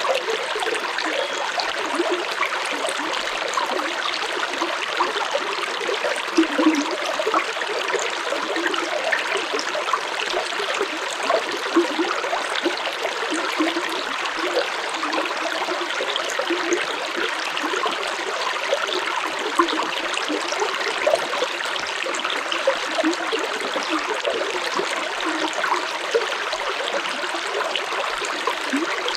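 Stream water flowing and burbling steadily, with small irregular splashes and gurgles over a constant rush.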